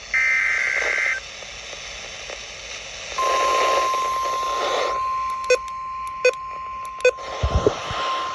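Weather radio alert over radio static: about a second of warbling two-pitch digital header data, then, about three seconds in, the steady 1050 Hz NOAA Weather Radio warning alarm tone, which signals that a warning is about to be read. A few sharp clicks sound during the tone.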